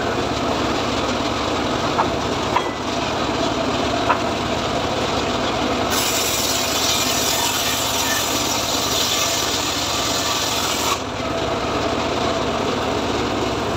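Homemade engine-driven circular saw bench ripping teak planks, the blade running steadily through the wood. The cut turns harsher and hissier for a stretch in the middle, and there are a few light knocks of wood early on.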